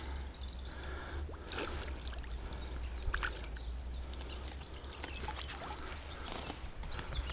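Landing net moving in canal water as a small pike is released, with scattered light splashes and drips, over a steady low rumble.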